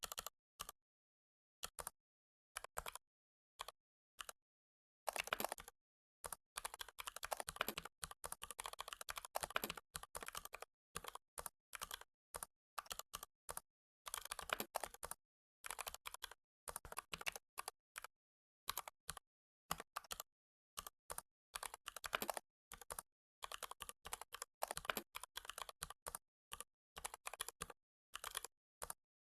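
Computer keyboard typing: a few single clicks at first, then quick runs of keystrokes from about five seconds in, broken by short pauses.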